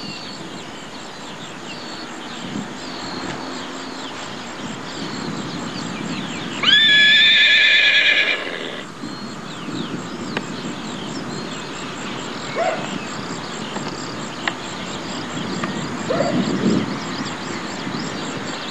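A horse whinnies once about seven seconds in: a loud, wavering call lasting nearly two seconds. Under it runs a steady low background noise with a few short, faint chirps.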